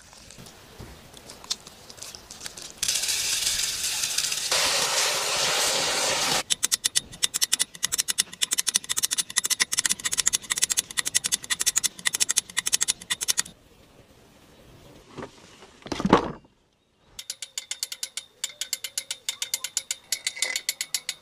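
Long runs of fast, evenly spaced mechanical clicking, ratchet-like, after a loud steady hiss of about three seconds near the start. A short loud whoosh comes between the two runs of clicking.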